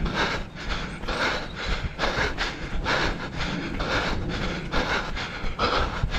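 A runner's heavy, quick, rhythmic panting breaths close to the microphone while running, over a steady low rumble.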